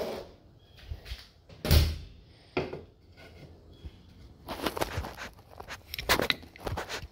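Handling knocks: a refrigerator door shutting and an aluminium beer can set down on a wooden workbench. The loudest is a single thump nearly two seconds in, followed by bursts of scraping and clicking later on.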